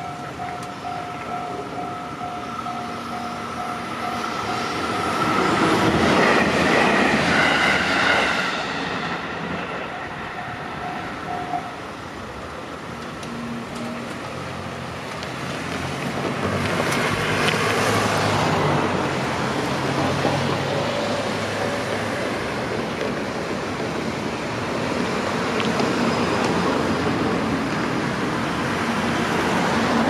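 A railway level crossing's warning bell rings in a fast, even clang while a train passes with a loud rush a few seconds in. The bell stops about eleven seconds in, and cars then drive over the crossing.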